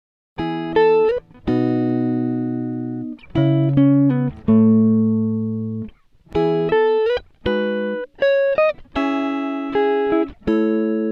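Instrumental melody on a guitar, played one note at a time. Each plucked note rings and fades, and some notes slide up or down into the next.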